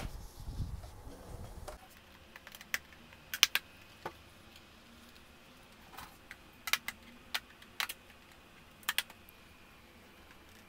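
Sharp plastic clicks, about a dozen scattered and some in quick pairs, as the snap-in clips along the edge of an all-in-one PC's rear housing are pried loose. A low rumble of the computer being handled comes in the first two seconds.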